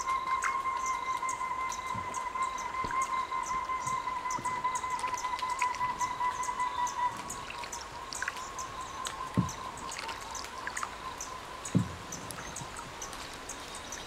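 Rainforest insect chorus: a steady high hum that weakens about halfway through, over a string of rapid high ticks at about two a second. Two soft low thumps come in the second half.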